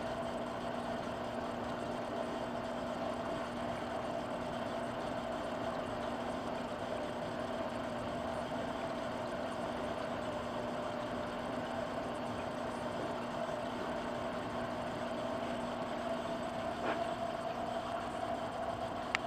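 Aquarium pump humming steadily, with an even hiss underneath.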